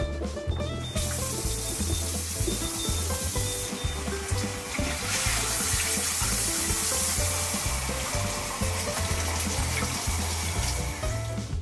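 Kitchen tap running into a saucepan in a sink, water pouring and splashing over the pan's rim. It starts about a second in and gets louder about halfway through. Background music with a steady bass line plays under it.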